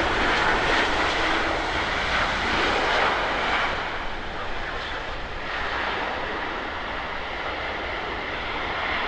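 Boeing 767-300ER jet airliner's engines running as it passes on its landing approach. The jet noise is loudest in the first few seconds, then eases off.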